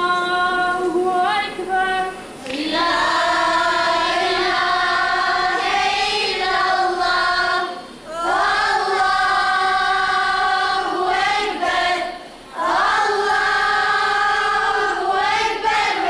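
A group of young girls singing together without accompaniment: one voice carries the opening bars, then the others join about two and a half seconds in. The song goes in long held phrases, with short breaks to breathe about eight and twelve seconds in.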